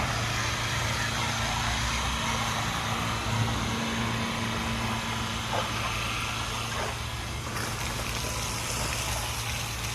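Pressure washer engine running steadily, a low hum under a constant hiss of spraying water.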